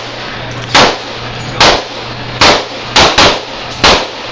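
Handgun being fired on a range, about six shots in quick succession at uneven spacing, over a steady low hum.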